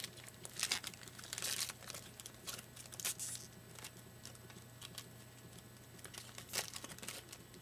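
Trading-card packs and cards being handled: irregular crinkling and rustling of a foil pack wrapper and cards, busiest in the first few seconds with another burst near the end.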